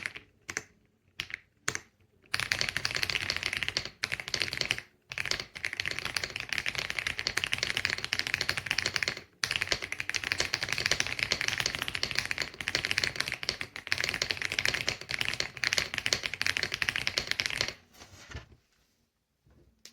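Rapid typing on an EPOMAKER x Aula F75 gasket-mount mechanical keyboard with Ice Vein switches: a few separate keystrokes, then a fast, steady run of key clicks with two short breaks, stopping about two seconds before the end.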